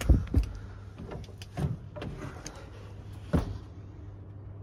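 Irregular knocks and bumps from someone moving about among the timbers of a truss roof space, the loudest just after the start and about three and a half seconds in, over a steady low hum.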